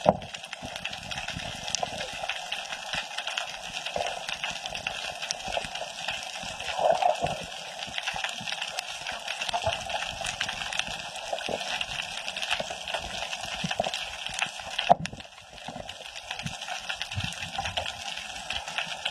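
Underwater reef ambience heard through a camera housing: a steady wash of water noise dotted with fine crackling clicks. There is a sharp knock about fifteen seconds in, after which the sound briefly drops.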